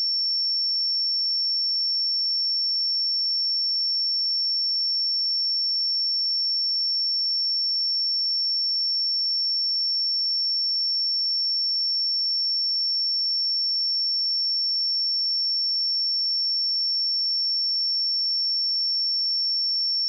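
A pure 5442 Hz sine-wave test tone, one steady high-pitched note held without change.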